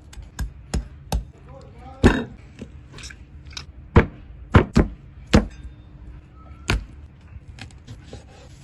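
A knife chopping on a cutting board: about nine sharp, irregularly spaced thunks, the loudest about two and four seconds in.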